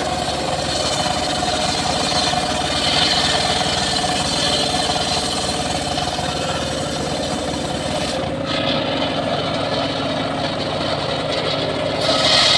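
Homemade circular sawmill ripping a mahogany log: a steady machine drone with the hiss of the blade cutting wood. About eight seconds in the cutting hiss drops away and the saw runs free, and near the end the cutting noise comes back louder as the blade bites into the log again.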